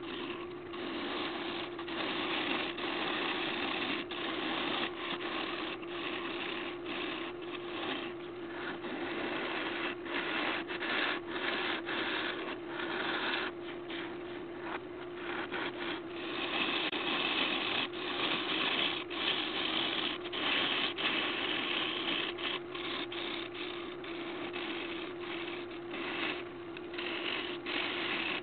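Wood lathe hollowing an apple wood and resin blank: a hand-held turning tool cuts and scrapes into the spinning wood in uneven strokes, the hiss of cutting coming and going, over the steady hum of the lathe motor.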